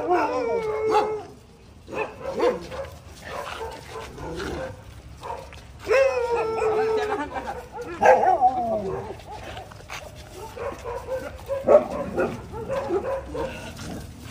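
A crowd of street dogs whining, yipping and now and then barking while they wait to be fed, with several long, drawn-out whines that fall in pitch.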